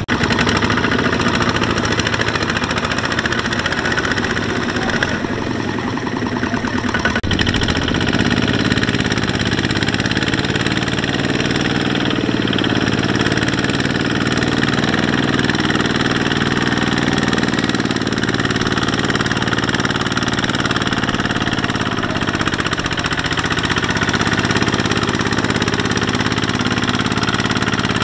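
Two-wheel walking tractor's single-cylinder diesel engine chugging steadily under load as it hauls a trailer of rice sacks through deep mud.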